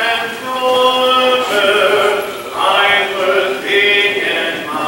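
Congregation singing a hymn a cappella, with several voices together on long held notes, each about a second, changing pitch from note to note.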